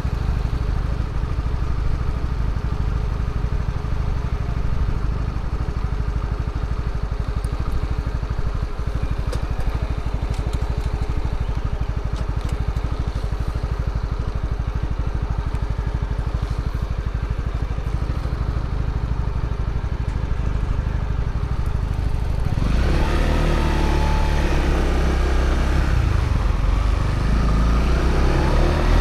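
Honda CB125R's single-cylinder 125 cc engine running through its stock exhaust, steady and low for most of the time. About three-quarters of the way through it gets louder, with the revs rising and falling as the bike accelerates.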